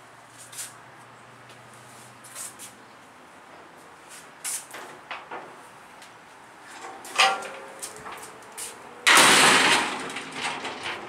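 Scattered metal knocks and clicks inside an aluminum livestock trailer, with a louder clank and brief ringing about seven seconds in. About nine seconds in comes the loudest sound, a sliding scrape that fades over about a second.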